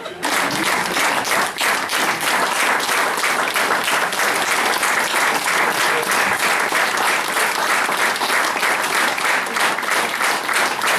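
Theatre audience applauding: many hands clapping in a dense, steady stream.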